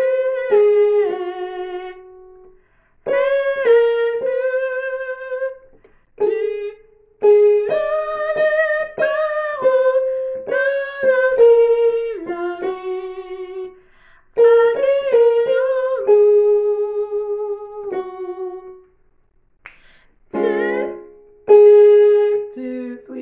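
A woman singing the soprano harmony line of a French worship song, unaccompanied, in several held phrases with vibrato and short breaks between them.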